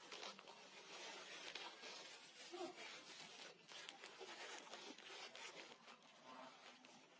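Faint rustling and scratching from monkeys moving about, with one brief, faint squeak about two and a half seconds in.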